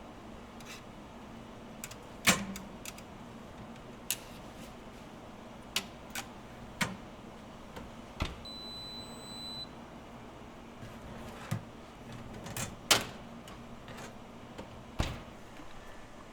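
Food-preparation clatter: scattered clicks and knocks of utensils and containers, a few of them sharp, with one short high electronic beep about halfway through.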